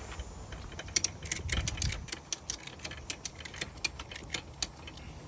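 A quick run of sharp, irregular clicks, several a second, starting about a second in and stopping near the end, over a low steady rumble.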